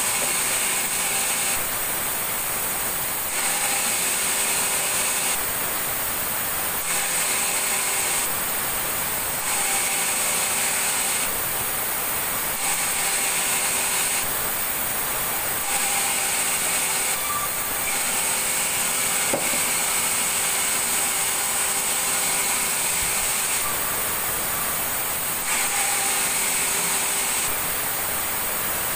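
Sawmill saw machinery running steadily, with a hum of several held tones and a high hiss, the noise switching back and forth in a regular pattern about every one and a half seconds.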